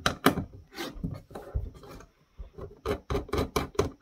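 Hand screwdriver turning out a screw that holds a router's circuit board down: a quick, irregular run of short scraping, rasping clicks.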